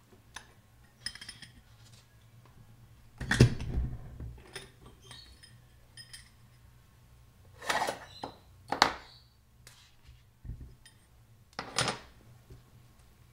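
Metal clunks and clinks as the differential carrier with its ring gear is worked loose from a Toyota G285 rear differential housing. The loudest knock comes about three seconds in, with a few sharper clanks later.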